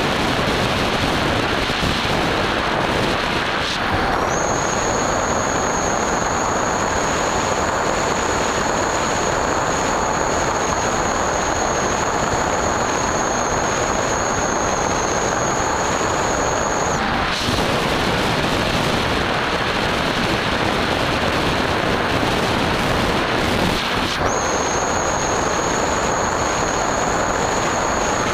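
Wind rushing over the microphone of the onboard camera on a Skyhunter RC plane in flight. The electric motor's high, steady whine comes in about four seconds in, cuts out after about seventeen seconds while the plane glides, and returns near the end.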